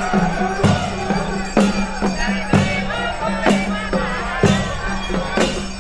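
Devotional music: a drum struck about once a second over a held drone, with a wavering melody line above.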